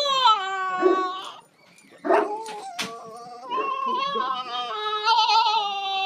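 A dog howling in long, drawn-out pitched notes, with a short pause between them.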